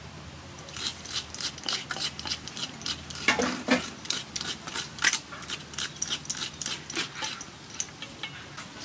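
Hand coconut scraper (a bottle cap on a wooden stick) rasping quickly and repeatedly against the meat inside a halved coconut shell, a few sharp scraping strokes each second, with the shreds dropping onto a steel tray.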